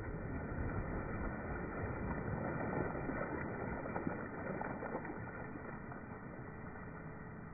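Water splashing and sloshing up out of a freshly drilled hole in lake ice as the auger breaks through and is lifted out, slowly dying away.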